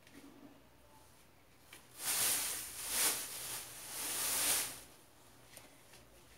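Oxford fabric rustling as it is handled and pulled from the pile, in three swells of hissing noise in the middle.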